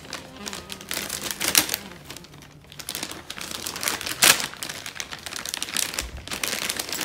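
Shiny gift wrapping paper being crinkled and torn open by hand, with irregular rustling and crackling and a sharp loud rip about four seconds in.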